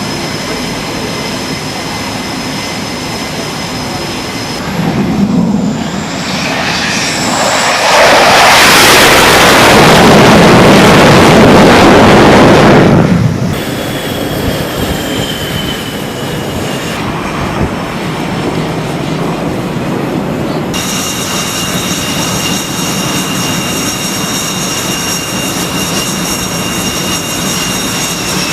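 Fighter jet engines running with a steady high whine. A much louder surge of jet noise swells up about eight seconds in and dies away after about five seconds.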